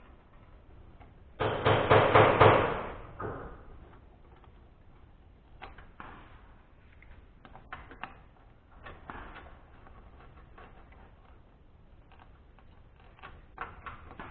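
Metal hand tools working on a small engine: a loud burst of rapid clicking about a second and a half in, lasting about two seconds, then scattered clicks and clinks.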